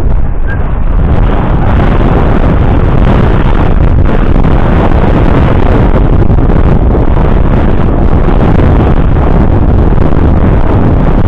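Wind buffeting the microphone: a loud, steady rush of noise, heaviest in the low end.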